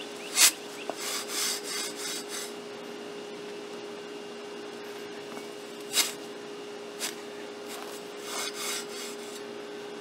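A Pro Plugger's steel tube being stepped into dry, sandy soil and pulled back out to cut grass plugs: gritty scraping and crunching in two stretches, with three sharp knocks, the first and loudest about half a second in.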